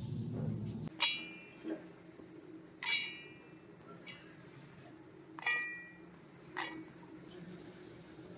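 Kitchenware clinking: four sharp, ringing clinks of a utensil against a dish, spaced one to three seconds apart, the second the loudest, with a few fainter ticks between.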